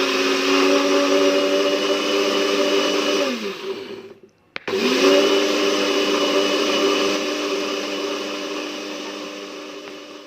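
Electric kitchen blender running, blending kencur root with water into a smooth mix. Its motor winds down and stops about three and a half seconds in, then after a click starts again and runs on steadily, slowly getting quieter toward the end.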